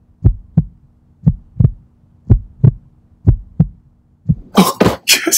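Heartbeat sound effect: a steady lub-dub double thump about once a second. Near the end a sudden loud burst of noise cuts in.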